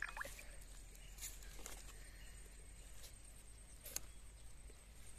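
A small knife scoring the skin of a ripe papaya: faint, scattered short clicks and scrapes, the sharpest about four seconds in.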